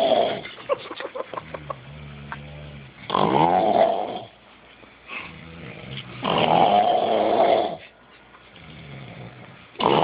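Heavy snoring: a loud snore about every three seconds, each lasting about a second, with a quieter, lower pitched breath between them.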